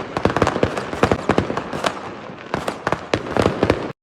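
New Year's Eve fireworks: many sharp cracks and bangs in rapid clusters, overlapping one another, which cut off suddenly near the end.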